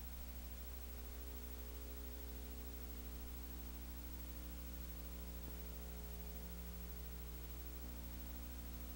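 Steady electrical mains hum with a faint hiss and nothing else: no crowd, voices or game sounds.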